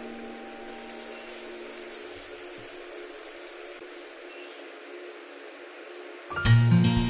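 Sliced onions frying in oil in a pan, a steady sizzle like light rain. Acoustic guitar music starts loudly about six seconds in.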